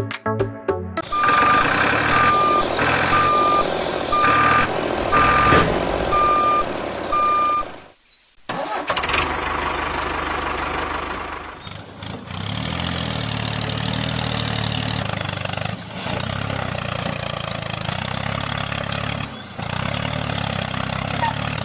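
Truck engine running while a reversing alarm beeps at a steady pitch about once a second, then the beeping stops and the engine runs on alone, its pitch rising and falling, broken off briefly a few times.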